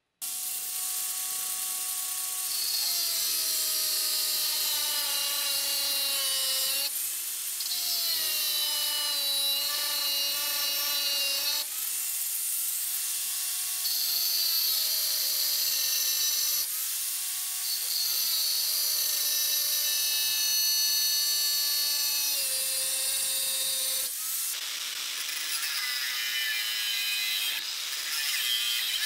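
Angle grinder cutting steel flat bar: a high motor whine over a loud hissing grind, the whine sagging in pitch each time the disc is pressed into the cut, with short breaks every few seconds.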